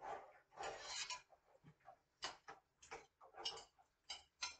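Faint kitchen work at the counter: irregular light clicks and knocks of things being handled, with a brief scrape or rustle about a second in.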